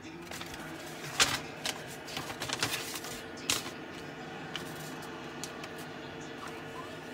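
Handling noise: scattered clicks and rustles, sharpest about a second in and again around three and a half seconds, over a steady hum.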